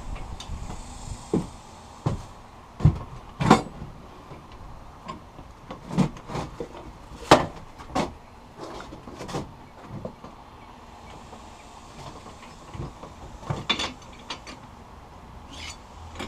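Irregular metallic knocks and clanks as a 1/8 inch steel flat bar is set in and bent on a manual compact metal bender. The loudest knocks come about 3 and 7 seconds in, with another cluster near the end.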